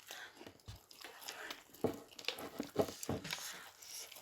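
Someone chewing and biting into spicy fried chicken, with irregular soft crunches and wet mouth sounds.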